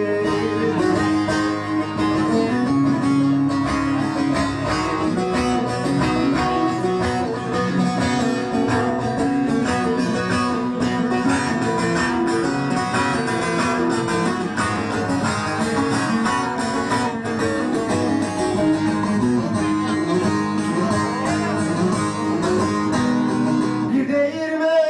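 Live, amplified instrumental interlude on a plucked string instrument: a quick, steady run of plucked notes between sung lines. A man's singing voice comes back in near the end.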